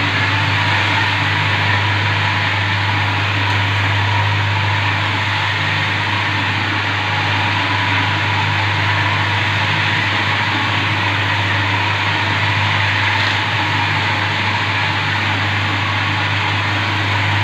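Arm-type marble polishing machine running, its rotating polishing head working over marble slabs in the chemical polishing stage. A steady low motor hum sits under the even hiss of the pad rubbing the stone.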